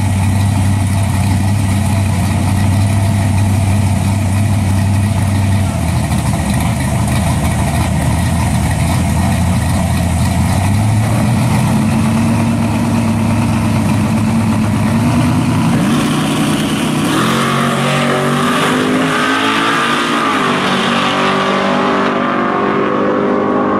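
Two drag-racing cars' engines, one of them a 1969 Chevelle's, running steadily on the start line. About sixteen seconds in they launch and accelerate hard down the strip, engine pitch climbing as they pull away.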